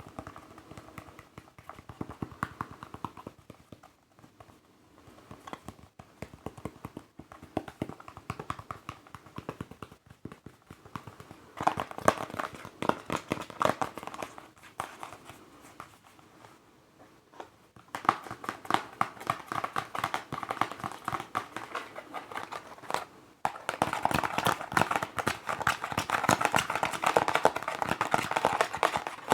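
Fingers tapping rapidly on a mask, a fast patter of small clicks in several spells, louder and denser in the second half.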